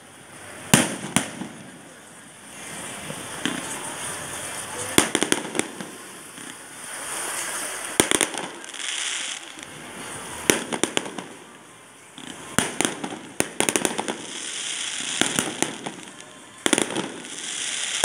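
Aerial fireworks bursting: sharp bangs at irregular intervals, some in quick clusters of two or three, with crackling and hiss between them.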